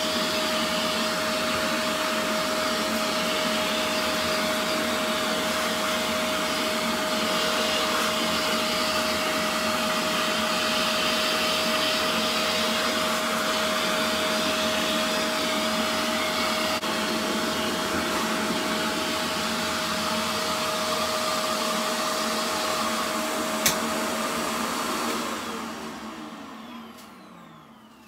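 Vacuum cleaner switched on and running steadily, a loud rush of air with a steady whine. About 25 seconds in it is switched off and winds down, the whine falling in pitch as it dies away.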